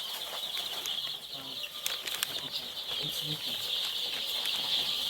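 A brood of week-old layer chicks peeping together in a continuous high-pitched chorus, with wings flapping as the chicks scramble about.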